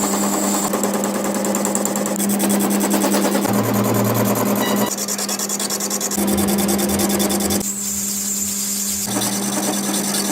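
Workshop power tools and machinery running, in short stretches that change abruptly every second or few, over a steady hum; one stretch holds a fast, even rattle.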